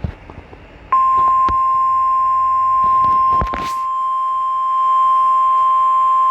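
NOAA Weather Radio warning alarm tone: one loud, steady tone of about 1050 Hz that switches on about a second in and holds. It signals that a new warning is about to be read. A few faint clicks come before it, and a short crackle of static sounds over it.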